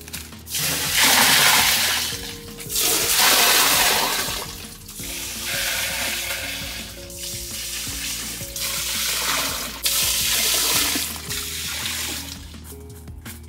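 Water poured from a clay pot, gushing and splashing into a tiled pool in repeated surges, with soft music underneath.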